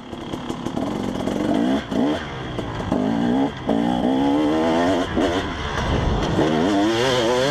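KTM 300 EXC Six Days' two-stroke single-cylinder dirt bike engine under way, revving up in several rising pulls, each broken by a short cut in the sound. It fades in at the start.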